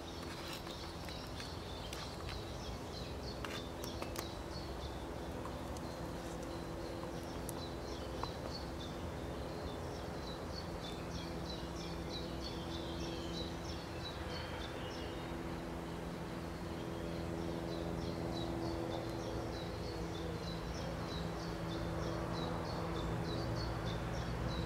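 Outdoor ambience: a steady low hum under a regular run of short, high chirps, about two a second, with a few light clicks in the first few seconds.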